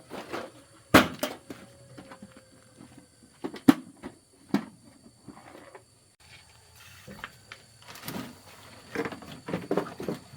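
A series of irregular sharp knocks and clatters of hand work on a machine, the loudest about a second in and another just before four seconds, with a busier run of smaller knocks near the end.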